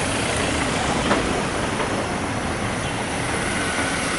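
Ambulance van's engine running as it drives slowly past close by, a steady vehicle noise with no siren sounding.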